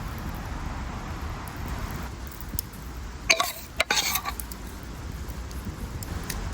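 A few short clinks and knocks of utensils against dishware, bunched together about halfway through, over a steady low rumble.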